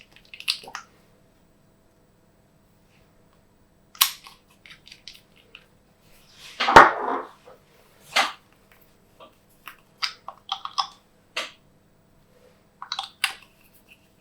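Glossy slime being squished and worked by hand, with irregular sharp wet pops and crackles from air pockets, the loudest about seven seconds in.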